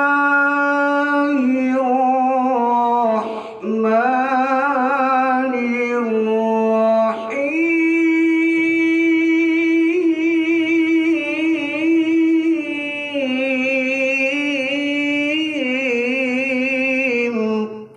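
A man's voice reciting the Quran in the melodic tilawah style into a microphone: long held notes with wavering ornaments, a short breath about three seconds in and again about seven seconds in, after which the voice climbs to a higher held note. The phrase ends just before the close.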